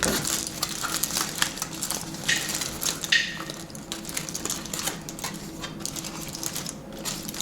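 A foil-wrapped coney dog being unwrapped by hand: a run of irregular crinkles and crackles from the foil.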